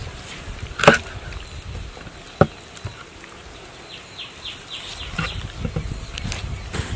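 A knife cutting raw pork ribs apart on a wooden chopping board: two sharp knocks about a second and a half apart, the first the loudest, then quieter scraping and slicing strokes.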